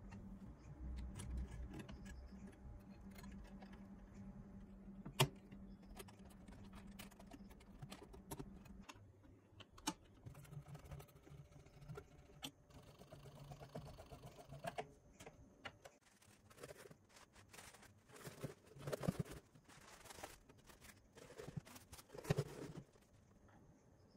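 Small clicks, taps and rattles of a hand screwdriver, screws and plastic cabinet parts being handled while a 1990 Polytron mini compo is taken apart, with one sharp click about five seconds in and busier handling noise near the end.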